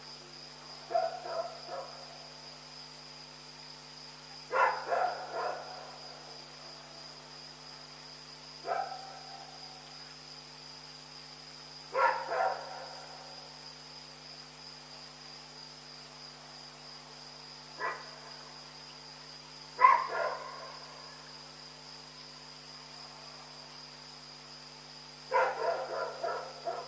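A dog barking in short irregular bouts of one to a few barks, every few seconds. A steady high chirring of crickets runs underneath.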